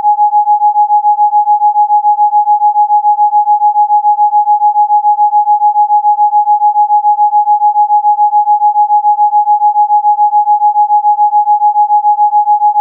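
Rife frequency tone: a single pure electronic tone held at one pitch, pulsing in loudness about six times a second.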